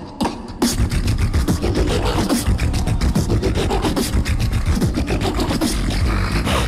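Two beatboxers performing a tag-team routine together through microphones and a sound system: a few sharp mouth clicks, then about half a second in a dense, fast beat with heavy bass and rapid percussive clicks.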